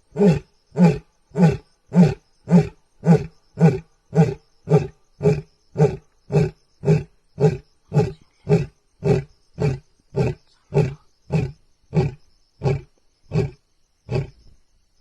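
Lion roaring: the grunting part of a roar, a long run of short, evenly spaced grunts, about two a second, that slow slightly and fade toward the end.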